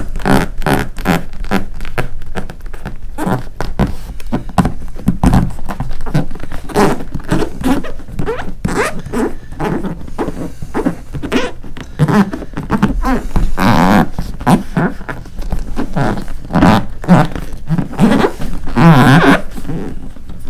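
A PVC D-ring patch being rubbed and pressed down by hand onto an inflatable paddle board to bond it with rubber cement. Quick repeated rubbing strokes, with a few longer squeaks of the vinyl near the middle and near the end.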